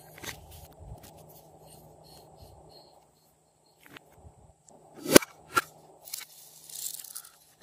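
Hard plastic toy containers being handled: a sharp plastic click about five seconds in, a smaller click just after, then a scratchy rustle of plastic pieces being pulled apart.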